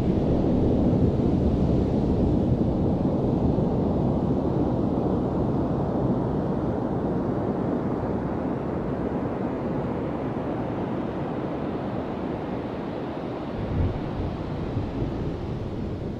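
Ocean surf on a sandy beach: a wave breaks at the start and its wash slowly dies away as the water runs up the sand.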